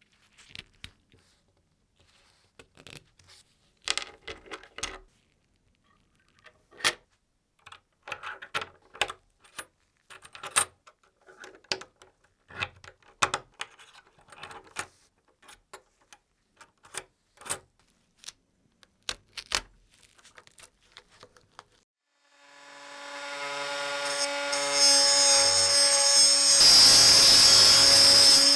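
Scattered light clicks and taps of small parts being handled. About 22 seconds in, a small electric power tool spins up and runs steadily, and a loud hiss joins it near the end.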